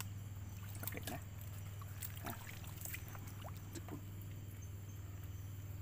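Footsteps and movement through wet mangrove mud and shallow water: a scatter of short squelches and splashes, mostly in the first few seconds, over a steady low hum.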